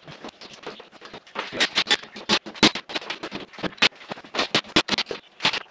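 Rapid, irregular clicks and clinks of small metal hardware (bolts, washers and nuts) being handled and fitted to a steel workbench frame.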